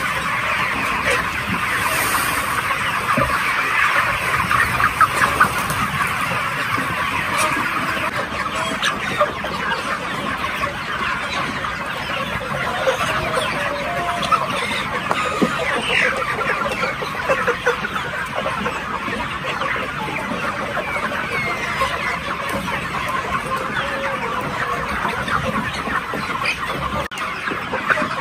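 A large flock of 40-day-old chickens calling all at once: a steady din of many overlapping voices.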